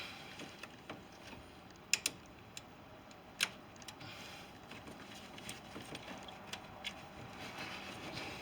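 Scattered sharp clicks and taps of a plastic fuel line disconnect tool being fitted and worked against a stuck fuel rail quick-connect fitting; a quick double click about two seconds in and a single louder one at about three and a half seconds.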